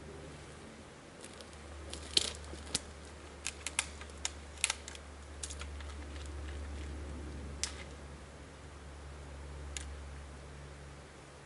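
Dry twigs snapping with a series of sharp cracks, a quick cluster a couple of seconds in and a few single ones later, over a low steady rumble.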